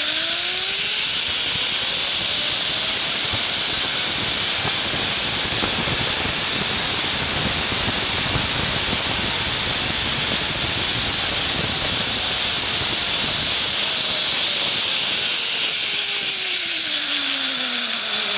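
Zipline trolley pulleys running along the steel cable, heard from the rider's position. A whine rises in pitch as the rider picks up speed in the first couple of seconds, under a loud, steady rushing hiss. The whine falls again near the end as the rider brakes into the landing platform.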